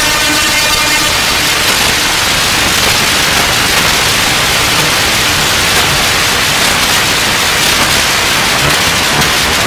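Modular synthesizer sounding a dense, loud wash of static-like noise. A pitched drone fades into the noise about a second in.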